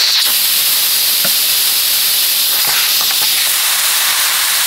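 Aluminium pressure cooker venting steam through its weight valve, which is held open by hand to let the pressure out: a loud, steady hiss that starts suddenly. A few faint clicks sound within the hiss.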